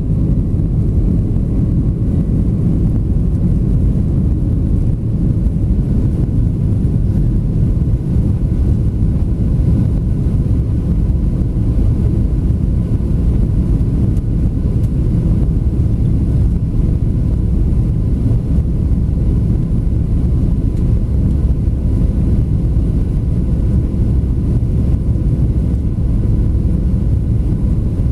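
Boeing 737-700 cabin noise in the climb: the CFM56 engines and rushing air make a steady low drone, with faint steady whining tones above it.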